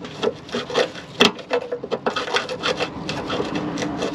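Wrench working on a rusted brake line fitting: a quick, uneven run of metal clicks and taps with scraping between them.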